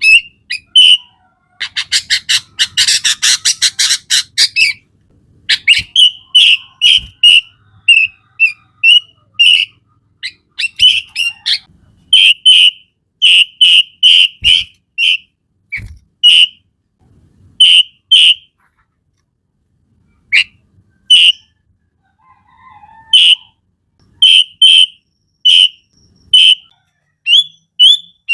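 Sooty-headed bulbul (kutilang) singing: a run of short, loud, whistled notes, with a rapid chattering trill about two seconds in and a couple of brief pauses about two-thirds of the way through.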